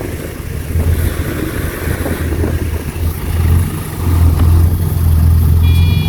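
Heavy diesel engine of earthmoving machinery running steadily, growing louder about four seconds in as the machine works or comes closer. A steady high tone starts near the end.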